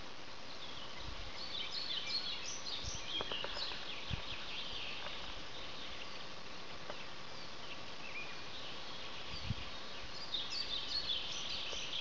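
Small birds singing: bursts of quick high chirps about a second and a half in and again near the end, over a steady background hiss. A few brief low thumps.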